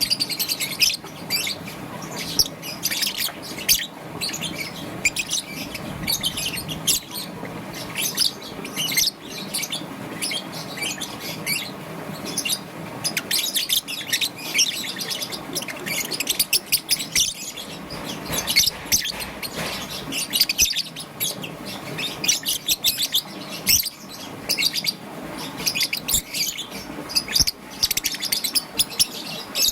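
Young peach-faced lovebird chirping continuously in quick runs of short, high-pitched chirps.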